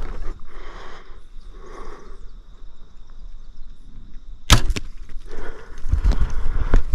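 A bow is shot about halfway through, giving a sharp, snapping release of the string. Rustling and low thumps through grass follow it.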